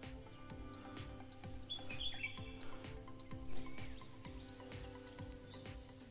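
Crickets chirring in a steady high drone, with a few short bird chirps over it.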